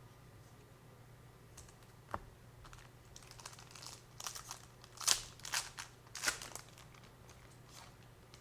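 Foil trading-card pack wrapper crinkling as it is opened, in a cluster of sharp crinkles through the middle, after a single click about two seconds in.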